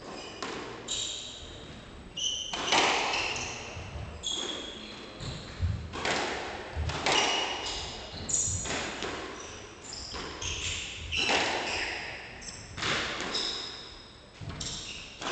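Squash rally: the ball cracks off the rackets and the court walls about every second and a half, with players' shoes squeaking on the hardwood floor, ringing in the court's echo.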